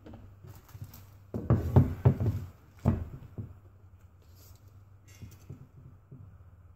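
Knocks and thunks of steel winch mounts being handled and set against each other on a wooden workbench, a cluster of them about one and a half to three seconds in, then a few lighter taps.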